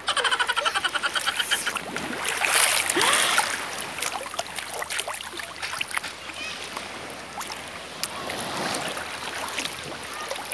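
Shallow seawater sloshing and splashing around someone wading, close to the microphone, with scattered small splashes. A loud rapid fluttering burst fills the first two seconds.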